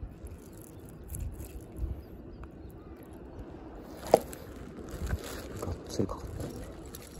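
Close handling sounds of a caught fish held in a plastic fish grip: low bumps and rustles, one sharp click about four seconds in, then a few smaller clicks and scrapes.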